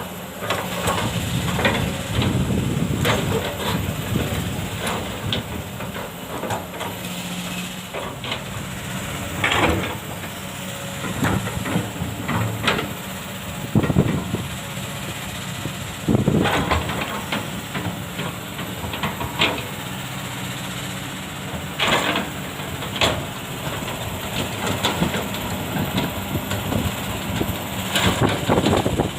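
Kobelco SK200 hydraulic excavator working: its diesel engine runs steadily, with sharp metal clanks and knocks every few seconds as it digs and handles fine sand.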